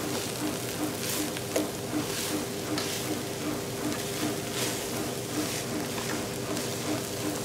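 Metal spatula stirring and tossing chopped vegetables and meat in a pan, with light sizzling and scraping strokes about once a second.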